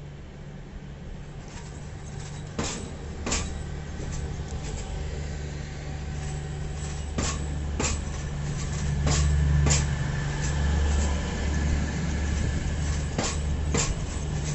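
A train drawing in, its engine giving a low rumble that grows louder. Sharp, irregular clacks come from its wheels running over rail joints and points.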